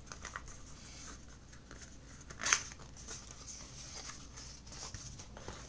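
A stiff black cardboard card is handled and folded open: papery rustling and sliding, with one sharper scrape about two and a half seconds in.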